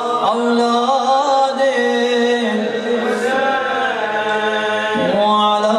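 A man's voice chanting a devotional recitation in a long, melodic, drawn-out style into a handheld microphone. He holds notes and glides between pitches, with a short break for breath about five seconds in.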